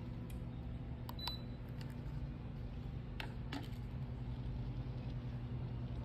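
Ceotec ForceSilence Aero 590 54-inch ceiling fan running with a steady low hum as it is switched from low to medium speed, the hum growing slightly louder in the second half. A few sharp clicks, one with a short high beep about a second in.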